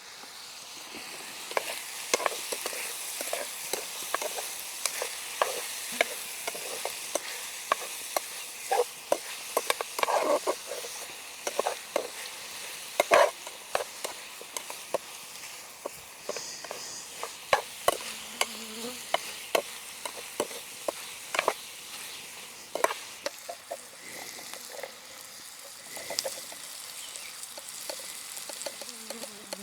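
Food frying over a campfire: a steady sizzling hiss with irregular sharp clicks and knocks, the loudest about 13 seconds in.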